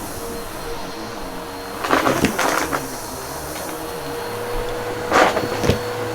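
Bissell PowerForce Helix upright vacuum running with a steady hum, crackling in two bursts as it sucks up crunchy debris, about two seconds in and again near the end.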